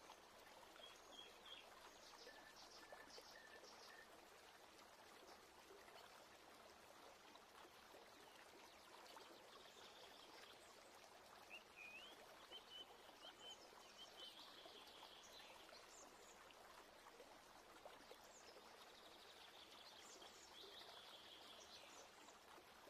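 Near silence: faint outdoor background hiss with occasional faint bird chirps.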